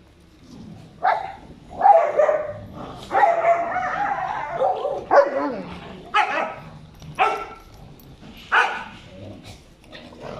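A pack of dogs barking: single sharp barks about a second apart, with a longer drawn-out, wavering call in the middle.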